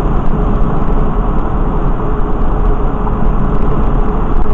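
Steady road noise from a car cruising on a freeway, heard from inside the cabin: an even low rumble of tyres and engine with no distinct events.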